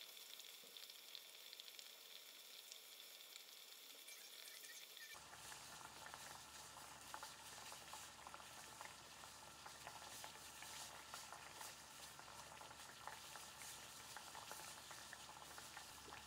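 Water at a rolling boil in a stainless steel saucepan, a faint steady bubbling and crackling.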